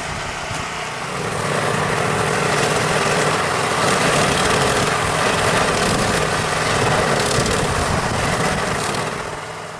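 Snowblower's small engine running steadily, growing louder about a second in and fading near the end.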